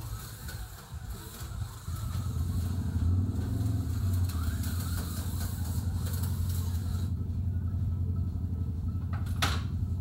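Small electric motor of a model vehicle running on the layout's track: a steady low hum with a rapid buzz that gets louder about two seconds in. A single sharp click comes near the end.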